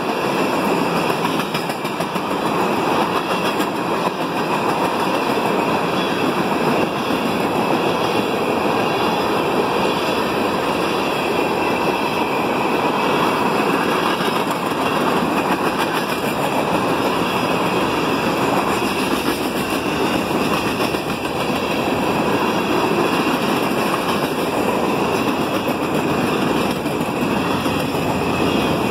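Norfolk Southern freight train's tank cars, then open gondolas, rolling past on steel wheels: a steady, loud rolling rumble with many small clicks of wheels on rail.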